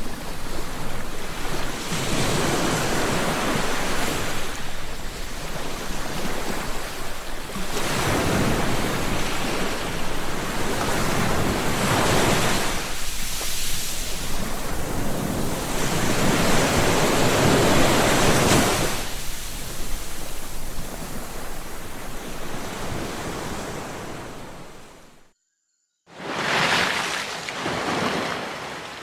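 Sea waves breaking and washing in, swelling and easing every four to five seconds. Near the end the sound cuts out completely for under a second, then starts again.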